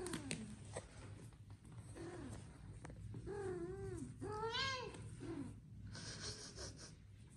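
Cats meowing among playing kittens: a short mew about two seconds in, two longer meows that rise and fall around the middle, and another short one after, followed by a brief rush of noise.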